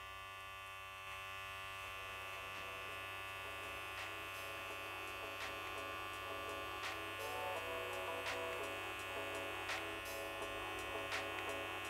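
Wahl Senior hair clipper running with a steady buzz while it is pushed up through short hair at the side of the head, its blade lever fully open, with a few faint ticks along the way.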